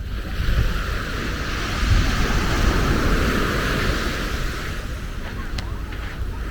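A wave breaking and washing up the beach, swelling about a second in and fading after a few seconds, with wind buffeting the microphone.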